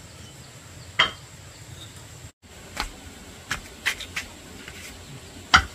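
Hard objects knocking and clinking against each other: about six sharp, irregularly spaced strikes, some with a short ring. The loudest comes near the end.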